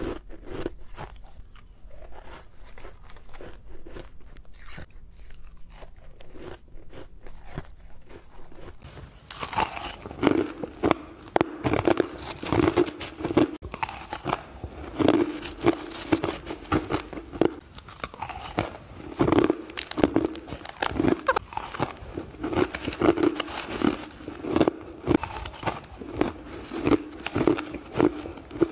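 Close-up crunching and chewing of crushed ice in the mouth, a steady run of crisp bites. About nine seconds in the crunching becomes louder and denser.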